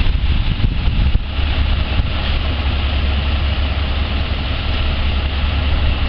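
Komatsu PC200 hydraulic excavator's diesel engine idling with a steady low rumble.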